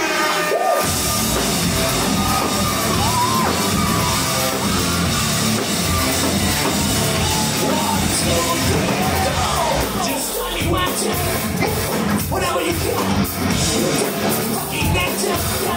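A live rock band playing loud, heavy music with a singer, heard from within the crowd in a large hall. The bass and drums come in fully about a second in.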